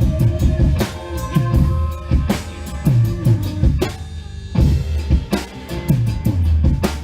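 Drum kit played in a steady groove of bass drum and snare hits over a recorded song, with cymbals in the high end that drop out briefly about four seconds in.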